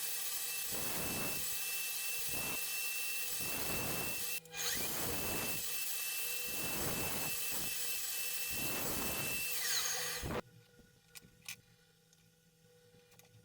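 Electric power tool working wood: a steady high-pitched motor whine under a rasping noise that swells and fades about once a second. It cuts out for a moment about four seconds in, then stops about ten seconds in, leaving only a few faint clicks.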